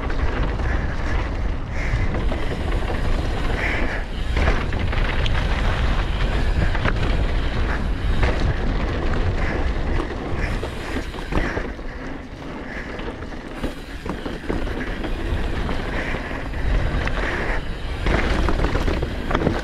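Mountain bike riding fast down a dirt trail: tyres rumbling over the ground and wind buffeting the microphone, with frequent short knocks and rattles from the bike over bumps.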